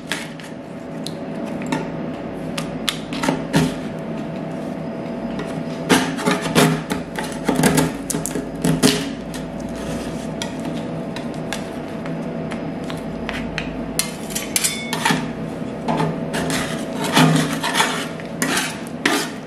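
Metal spatulas scraping and knocking on the frozen steel plate of a rolled-ice-cream machine as they break up and scrape thin sheets of ice cream, in irregular strokes that come in clusters. A steady hum runs underneath.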